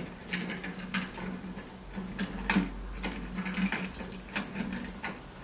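T-handle vending machine lock of chromed zinc alloy being turned anti-clockwise by hand, its threaded spindle unscrewing: a run of light, irregular metallic clicks and rattles, with the keys hanging from the lock jingling.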